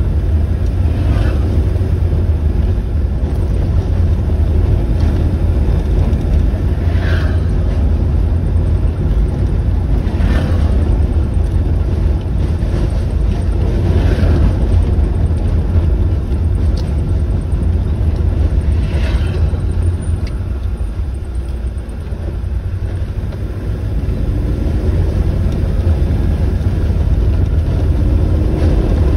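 A road vehicle driving, with a steady, heavy low rumble of engine and road noise. The engine note rises near the end as it picks up speed.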